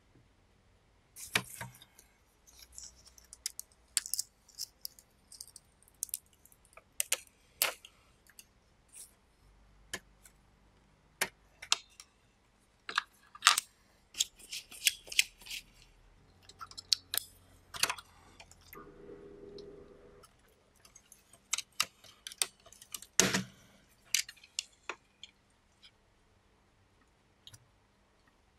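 Scattered clicks, taps and light rattles of small hand tools being handled: needle-nose pliers at a cassette recorder's circuit board and chassis, and screwdriver bits handled in a plastic bit case. A brief low buzz sounds about two-thirds of the way through.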